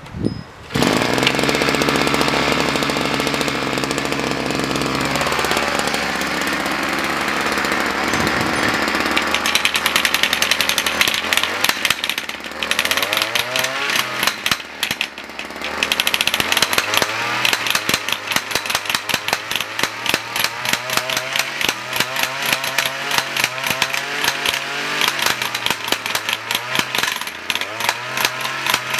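A 52cc two-stroke gas pile driver starts up just under a second in and runs, its engine speed rising and falling, with a rapid hammering rattle from about a third of the way in as the hammer mechanism works, cutting back twice briefly.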